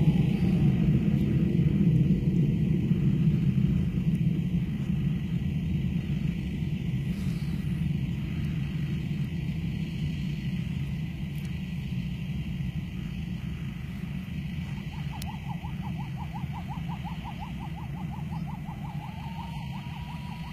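Distant rumble of the Shaheen-III's solid-fuel rocket motor as the missile climbs away, a deep noisy roar that slowly fades over the span.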